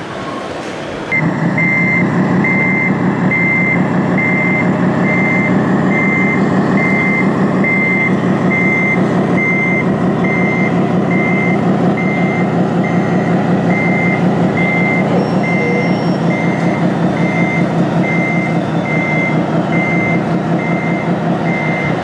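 Reversing beeper and diesel engine sound from a radio-controlled model truck's sound module. Evenly spaced high beeps sound over a steady low engine throb, both starting abruptly about a second in.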